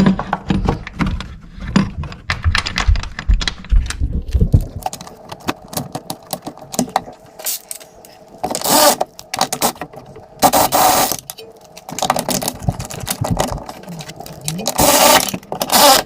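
A socket wrench ratcheting in quick clicks on the coilover's mounting bolts for the first few seconds. Later come three harsh bursts of noise, each about a second long.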